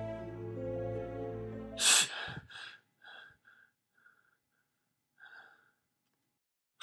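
Slow, sad-sounding music breaks off abruptly, cut short by a loud, sharp gasp, followed by several short, fading breaths. A brief sharp sound comes right at the end.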